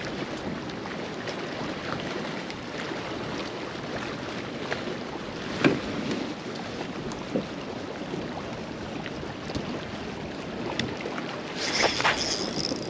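Small waves lapping against a fishing kayak's hull, with wind on the microphone and a few light knocks. Near the end a spinning reel starts to click as its handle is turned.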